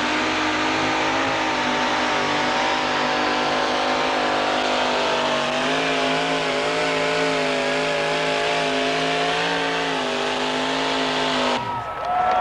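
Two-wheel-drive pulling truck's engine running flat out at a steady high pitch as it drags the weight-transfer sled, with the pitch wavering slightly, then stopping abruptly near the end.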